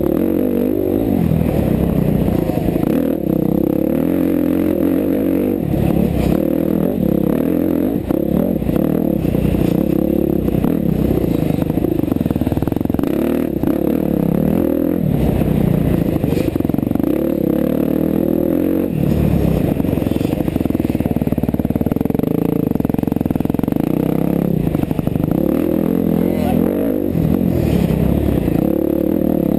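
KTM 350 XC-F single-cylinder four-stroke dirt bike engine, heard from the rider's helmet, revving up and down continually as it is ridden hard along the trail.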